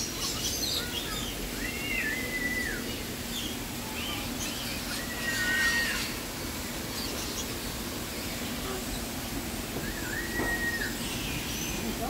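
Parrots calling in an aviary: three clear whistled calls about four seconds apart, each rising, holding a level pitch, then dropping, over scattered higher chirps.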